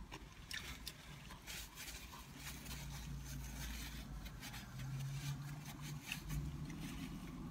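Close-up chewing and mouth sounds of someone eating a fast-food burger and fries, with small clicks and crinkles of a paper food wrapper being handled, over a low steady hum.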